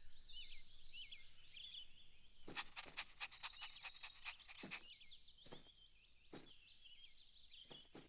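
Faint outdoor ambience of small birds chirping and twittering, with a few scattered sharp clicks.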